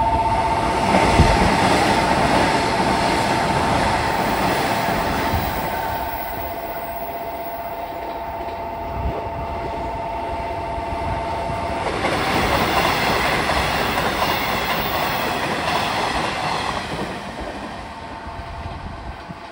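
Nishitetsu 3000 series electric trains running through the station, wheels clattering over the rails, first one train and then, about twelve seconds in, a second on the other track. A two-tone level-crossing warning bell rings steadily under the first train, stops about twelve seconds in, and starts again near the end.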